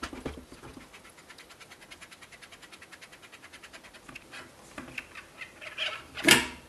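Threaded air tube of an EDgun Leshiy air rifle being unscrewed by hand: a rapid, even ticking as it turns. Near the end come a few knocks and one loud knock.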